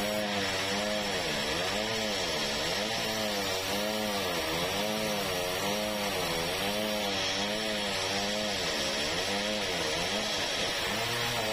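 Sawmill saw running while cutting red meranti timber, a steady loud machine sound whose pitch rises and falls in a regular wavering, about three times every two seconds.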